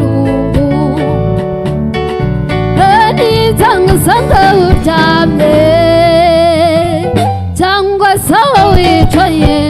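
Live band: a woman sings with vibrato over electric bass, keyboard and drum kit, holding one long note in the middle.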